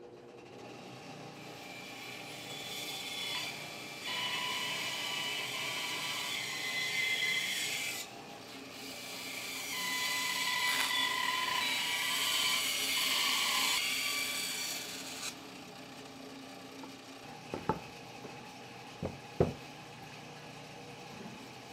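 Wood lathe running while a turning tool cuts into a spinning sycamore blank, shaving wood in two long passes. After that the lathe runs on more quietly, with a few sharp knocks near the end.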